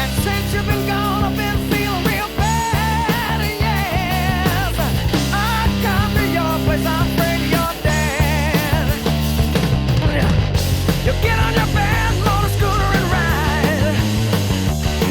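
Hard rock band recording: an electric guitar plays a lead line full of bends and vibrato over bass guitar and drums, raw and undubbed without effects.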